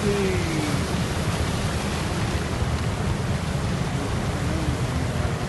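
Steady rush of floodwater churned up by a vehicle driving through a flooded street, with a low rumble underneath.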